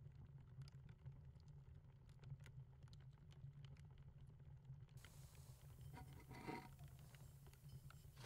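Near silence: room tone with a faint low hum and scattered small clicks and scratches of objects being handled. About five seconds in, a faint hiss joins and runs on, with a brief rising-and-falling tone partway through it.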